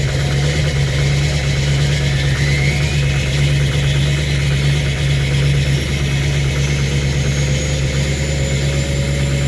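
LBZ Duramax 6.6-litre V8 turbodiesel idling steadily on a −18°F cold start, not yet running right; the owner puts its rough running down to worn injectors.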